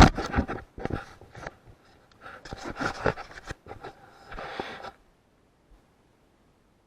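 A run of rustling and scraping noises with sharp clicks, stopping about five seconds in.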